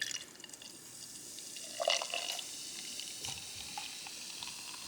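A cola opened with a sharp click, then poured out, fizzing steadily.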